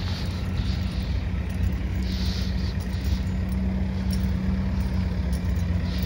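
Steady low hum of an engine running, with a continuous low rumble.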